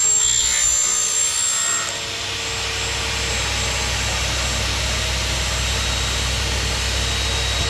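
Iwin 2-in-1 aluminium cutting machine's saw blade cutting through an aluminium profile with a high whine, which stops about two seconds in. A steady rushing noise continues after.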